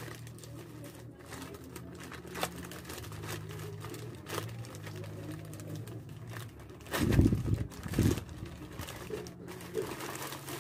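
Plastic courier pouch being pulled open and crinkled by hand, with scattered rustles and clicks and two louder handling rustles about seven and eight seconds in.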